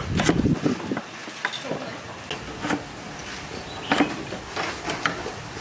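Kitchen knife slicing galangal on a wooden cutting board: irregular sharp knocks of the blade on the board, roughly one every half second to a second.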